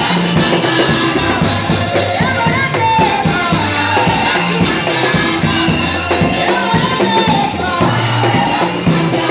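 Church worship music: voices singing over a band with drums and a moving bass line.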